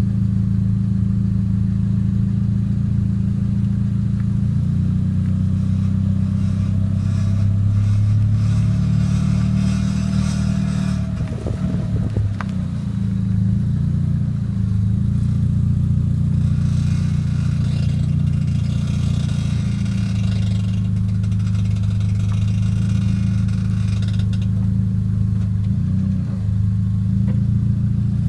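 A 1996 Toyota Celica's engine running steadily, with two stretches of creaking and grinding from the driver-side front wheel as the car turns left, about a quarter of the way in and again past the middle. A sharp click comes between them.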